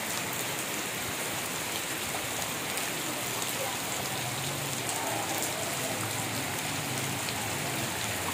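Steady rain falling, an even unbroken hiss of rainfall.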